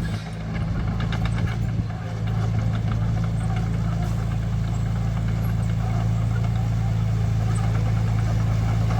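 Heavy diesel engine of construction machinery running with a steady low drone. A few clanks and rattles come in the first two seconds, and the engine gets a little louder after that.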